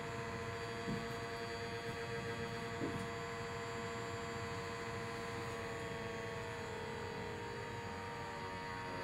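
Small electric fan of a Mattel Mind Flex toy running steadily, a whirring hum that blows the foam ball up and holds it in the air.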